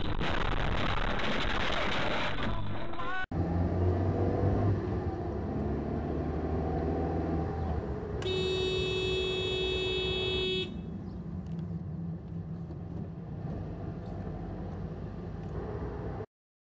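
Car road and engine noise from a dash camera, with a car horn sounded in one long, steady blast of about two and a half seconds in the middle.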